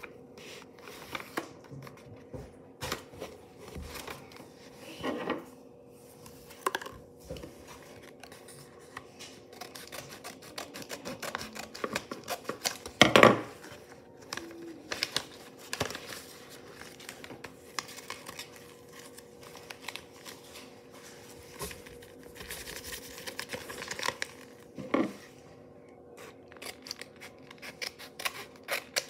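Paper and clear tape handled and opened by hand: rustling and crinkling with many small clicks, and a few louder rustles about 5, 13 and 25 seconds in, over a faint steady hum.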